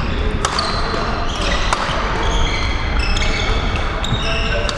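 Badminton rally: sharp clicks of rackets striking the shuttlecock and many short, high-pitched squeaks of court shoes on the floor.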